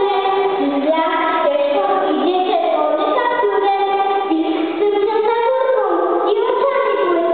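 Children's voices singing a song, with musical accompaniment, in a melody that steps from note to note.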